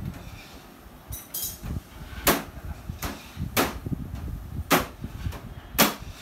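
Plastic snaps from the front panel of a Mitsubishi Electric split air conditioner's indoor unit being pressed into its clips: four sharp clicks about a second apart, with a couple of fainter ones between.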